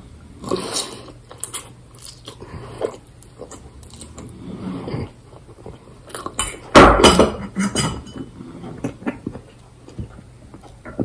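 Eating sounds: chewing, with a metal fork clinking against a small stainless-steel bowl, and a louder burst of noise about seven seconds in.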